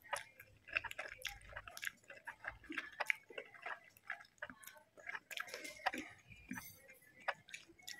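A person eating instant noodles, sucking the strands in and chewing: a scatter of faint, short wet mouth clicks and smacks.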